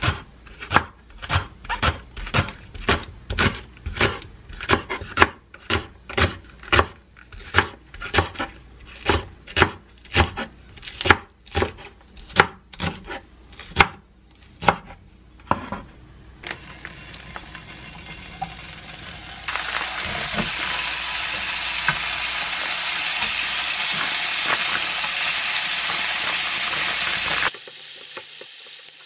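Chef's knife chopping a green onion on a wooden cutting board, about two sharp chops a second for some fifteen seconds. Then smoked duck slices sizzling in a frying pan while being stirred, the sizzle growing louder a few seconds in and dropping off abruptly near the end.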